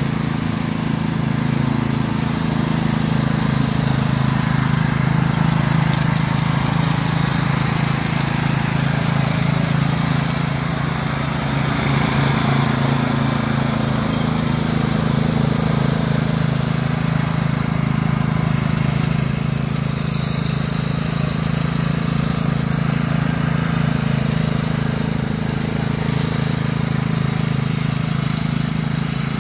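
Cub Cadet CC30H rear-engine riding mower running steadily with its blades engaged while it drives over leaves, picking them up into the rear bagger.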